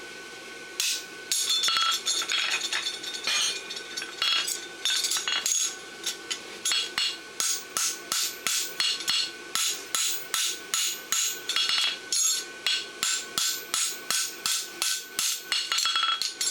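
Farrier's hand hammer striking a steel bar shoe on an anvil in a quick, steady run of blows, about three a second, with the anvil ringing on under them.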